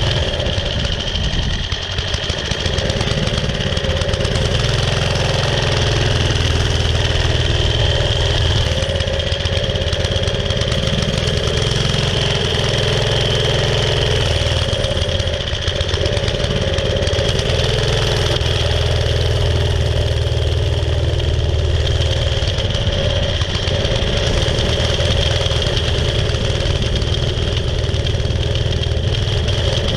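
Vintage mini bike's small Briggs & Stratton single-cylinder engine running steadily while riding, easing off briefly a couple of times.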